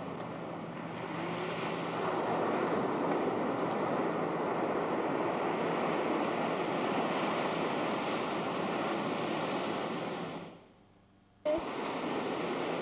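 Steady rush of ocean surf and wind on the microphone. It drops out for about a second near the end, at a break in the recording, then resumes.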